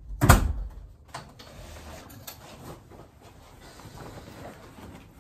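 A door shutting with one sharp knock a moment in, followed by faint scattered clicks and rustles.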